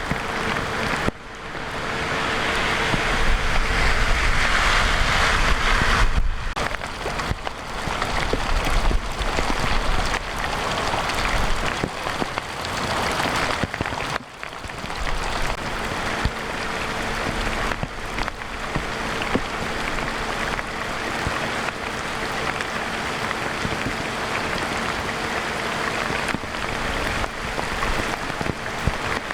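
Heavy rain pouring steadily, mixed with rushing storm water. The sound drops out briefly three times: about a second in, at six seconds, and at fourteen seconds.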